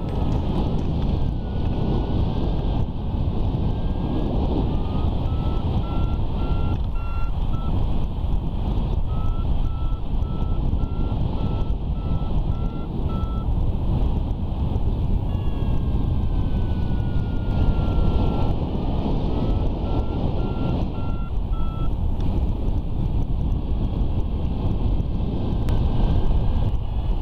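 Paragliding variometer beeping in short repeated tones, about two a second, with a longer tone sliding down in pitch around the middle, over heavy wind rushing on the microphone.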